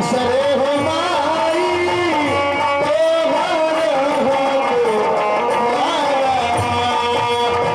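Live Bhojpuri nirgun folk music from a stage band: a gliding melody line over steady instrumental accompaniment, with a plucked-string sound in the mix.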